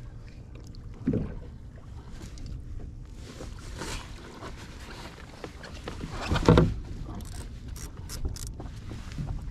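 Water and handling noise as a hooked California halibut is brought alongside a kayak, with a few sudden knocks, the loudest about six and a half seconds in. A few short high clicks follow near the end.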